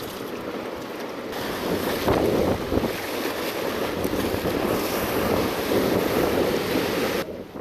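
Wind buffeting the microphone over ocean surf washing against the rocks, with a hissing surge swelling about a second and a half in and falling away sharply near the end.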